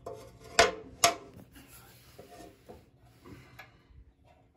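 Wrench working a nut on a garden tractor's steel sleeve-hitch bracket: two sharp metal clinks about half a second apart, then lighter scraping and ticking of the tool on the nut.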